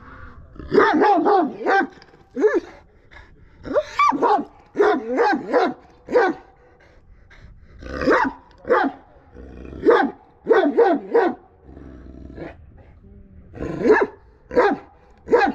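Kangal dog barking repeatedly, in short volleys of two to four barks with pauses of a second or two between them.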